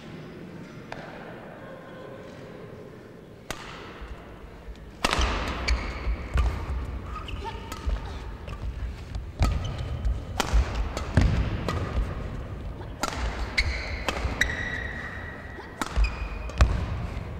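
Badminton rally: sharp cracks of racket strings hitting the shuttlecock, court shoes squeaking on the synthetic court mat, and the thud of footfalls, starting about five seconds in after a quiet lead-in with a single tap.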